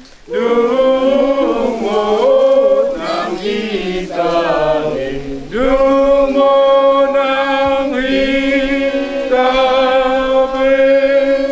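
A group of voices singing a slow hymn without accompaniment. The notes are drawn out and long-held, with the melody moving in the first half and then settling into steady sustained notes.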